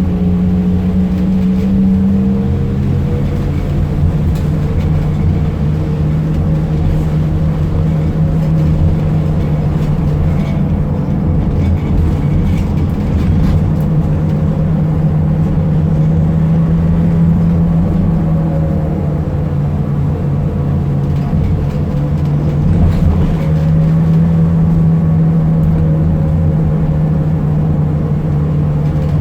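Fiat Ducato minibus's diesel engine running steadily under way, a droning tone in it rising and falling gently. This carries the strange turbo noise of a failing turbocharger.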